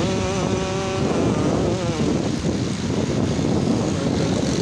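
Steady road traffic noise from a busy highway, with a brief wavering pitched tone in the first second.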